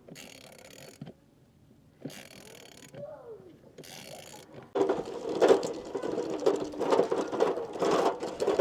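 International 785 tractor's diesel engine running with a rapid, even clatter. It comes in loud about two-thirds of the way through, after a quiet stretch.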